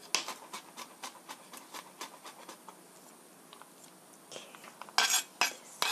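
Chef's knife mincing garlic on a plastic cutting board: quick chopping taps at about four a second that thin out after a couple of seconds, then a few louder scrapes of the blade across the board near the end as the minced garlic is gathered up.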